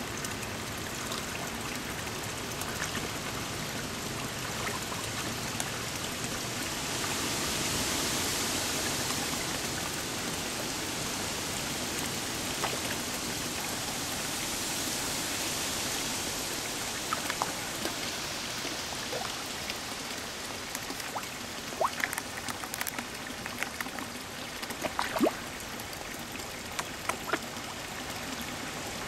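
Steady rush of running pond water, swelling a little for several seconds early on, with koi slurping and splashing as they take floating pellets at the surface: a scatter of sharp pops and smacks from about a third of the way in, the loudest near the end.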